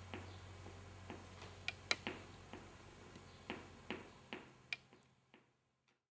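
Faint, irregular clicks, about two or three a second, over a low steady hum, all fading away to silence near the end.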